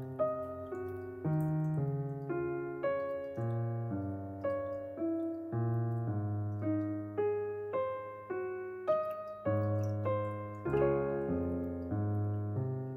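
Background piano music: a melody of single struck notes, changing a little under twice a second, over low bass notes.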